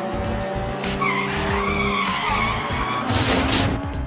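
Background music with dubbed cartoon car sound effects. A wavering tire screech runs from about a second in, then a short burst of rushing noise comes near the end.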